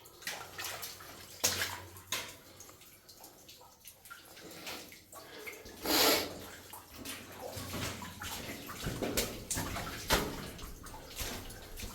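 Water splashing in a flooded mine adit: a run of irregular splashes, the loudest about six seconds in.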